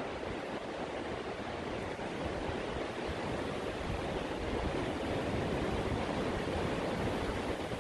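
Ocean surf breaking and washing on a sandy beach, a steady, even rush of noise.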